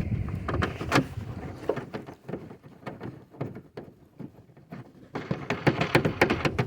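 Clicks and clatter of the taillight assembly's retaining nuts being tightened onto their studs, with a dense run of quick clicks about five seconds in.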